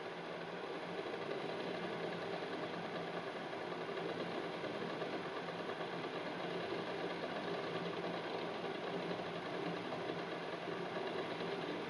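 Water heating in a stainless steel pot with eggs in it, coming up toward the boil: a steady crackling hiss of forming bubbles that grows slightly louder about a second in.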